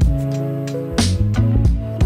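Background music with a steady drum beat and sustained bass and melody notes.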